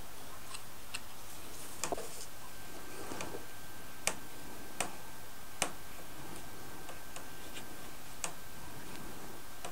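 Light, irregular clicks and taps of small plywood window frames being handled and pressed into place on a hardboard work board, about half a dozen in all, over a steady low hiss.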